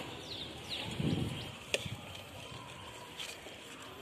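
Fired-clay bricks being stacked by hand: a dull thump about a second in, then a sharp knock of brick on brick.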